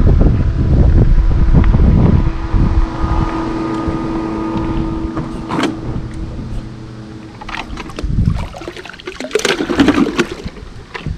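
Wind buffeting the microphone, then a steady drone for a few seconds. Near the end comes a run of splashing and clattering as the floating plastic bait bucket is handled at the water's surface to take in a freshly caught bluegill.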